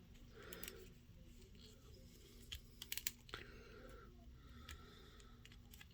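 Near silence with a few faint plastic clicks and taps, bunched about two and a half to three and a half seconds in: an action figure's joints being moved and handled.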